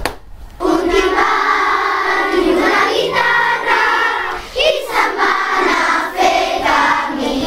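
A class of young schoolchildren singing a song together. The singing comes in about half a second in, after a brief click, and runs in phrases with short breaks between them.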